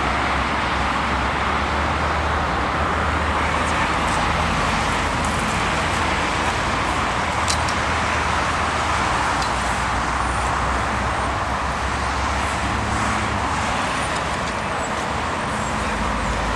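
Steady road traffic noise, an even wash of passing cars with no single vehicle standing out.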